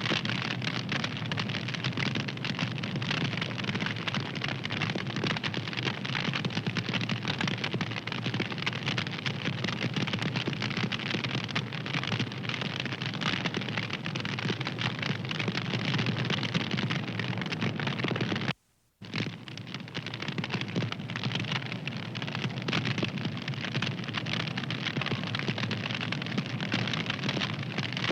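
Wood fire crackling and popping steadily in dense, continuous small snaps. It cuts out for a fraction of a second about two-thirds of the way through, then resumes.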